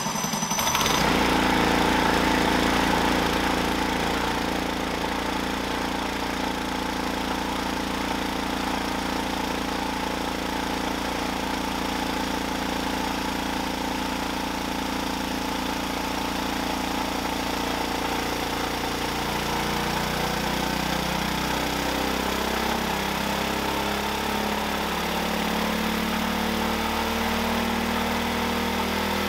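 Coleman B200RSV mini bike's stock 196cc single-cylinder engine running steadily. After about 20 seconds its pitch begins shifting up and down.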